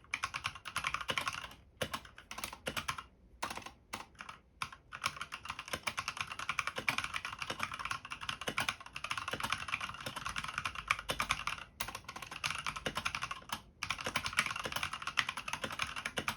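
Typing on a Skydigital BT61 mechanical keyboard with stock red linear switches: a fast, dense clatter of keystrokes. It slows to a few separate strokes with short pauses about two to five seconds in, then picks back up to steady fast typing.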